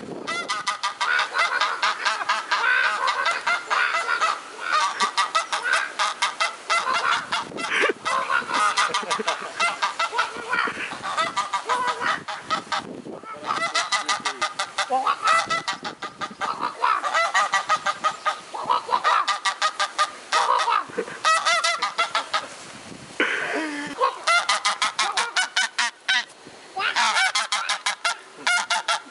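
White domestic goose honking in long, rapid runs with only short breaks, a back-and-forth series of calls directed at a person standing close by.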